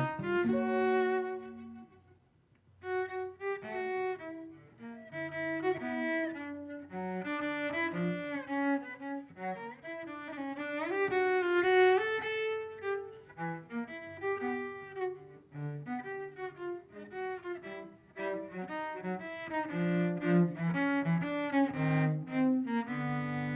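Bowed cello playing a lively running melody, with a brief break about two seconds in.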